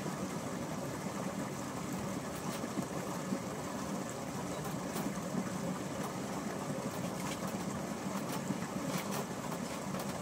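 A steady low hum under a constant hiss, with a few faint clicks.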